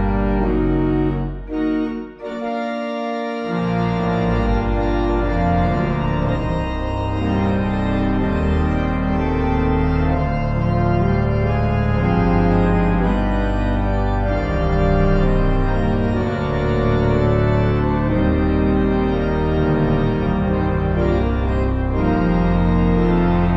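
Church organ playing full sustained chords over a deep pedal bass. The sound thins briefly about two seconds in, then the bass comes back in and the music carries on.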